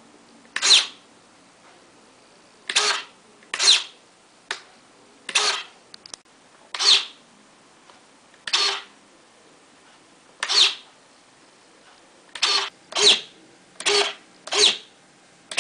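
Small RC servo buzzing in short bursts, about a dozen times at uneven spacing, each burst a quick move of the servo swinging the plane's leading- and trailing-edge flaps together through the linkage.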